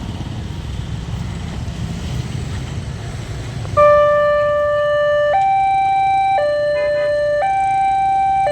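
A low rumble, then about four seconds in a locomotive horn starts sounding a steady two-tone call, switching between a lower and a higher pitch about once a second, the hi-lo 'hongeng' horn pattern.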